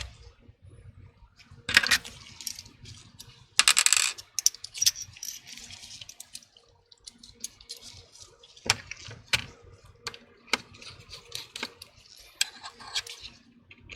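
Small metal repair tools and parts clicking and clattering on a work surface, with a sharp clack about two seconds in and a longer rattling clatter around four seconds in, then lighter scattered ticks.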